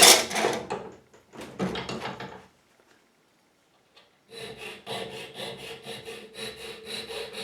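A sharp metallic knock and some handling clatter, then, about four seconds in, a hand file rasping across the bitting of a lever-lock key blank in quick, even strokes, with a faint ringing from the metal. The key is being filed down a little at a time where a lever is overlifted.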